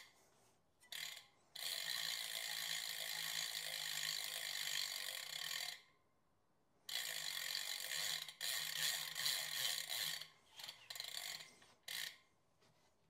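Nepest Maui rear wheel's freehub ratcheting as it freewheels: a fast buzz of clicks in two long runs of about four and three seconds, then several short bursts.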